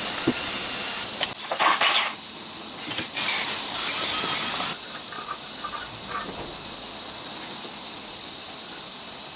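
Steady workshop hiss that changes level abruptly several times, with a few short clanks of hand tools on a classic Mini engine during strip-down, mostly in the first two seconds.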